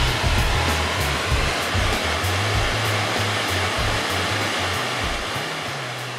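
Steady roar of a large waterfall, white water rushing down a rocky cascade (Denison Falls on the Dog River), with background music of changing bass notes and a light ticking beat underneath. Both fade down toward the end.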